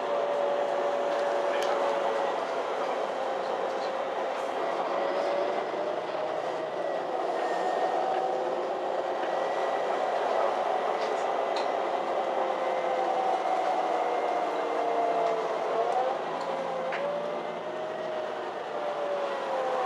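Inside a MAN Lion's City G articulated city bus under way: the drivetrain runs with a whine whose pitch slowly rises and falls with road speed. About sixteen seconds in, the pitch drops and shifts.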